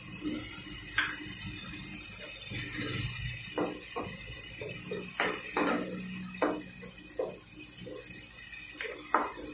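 A spatula scraping and tapping against a non-stick kadai while stirring freshly added ginger paste into a frying onion-tomato masala. It makes irregular soft knocks and scrapes, a few each second.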